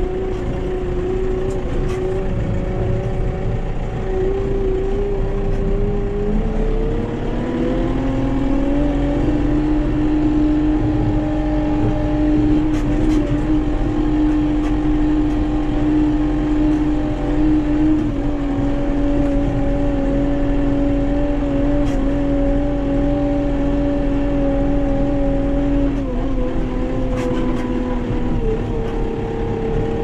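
Tractor engine running under way with a steady whine. It speeds up and rises in pitch about a quarter of the way in, holds there, then drops back near the end.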